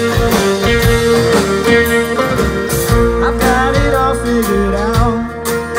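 A live band playing a country-pop song: acoustic guitar strumming over a drum kit, with the full band loud and steady.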